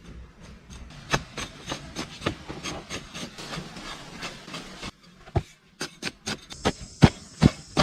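Irregular sharp knocks and clicks with rubbing and scraping between them; the loudest knocks come near the end. A faint steady high whine joins about two-thirds of the way through.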